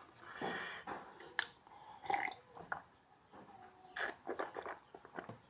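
Close-up eating sounds of a person chewing pork: irregular wet chewing and mouth clicks, with a few sharp smacks.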